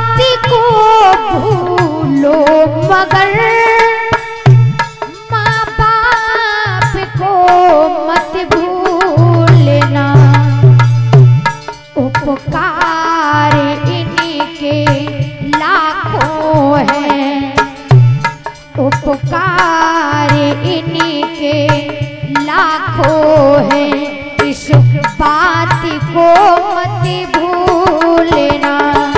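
A woman sings a Hindi devotional song with long gliding phrases, backed by a hand drum keeping a steady rhythm.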